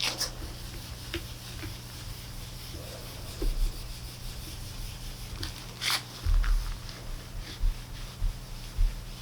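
A plate being polished by hand: rubbing and scraping with a few sharp clicks and several dull knocks, the loudest click about six seconds in, over a steady low hum.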